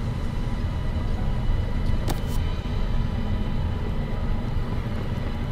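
A steady low rumble, with faint steady high tones over it and two faint clicks about two seconds in.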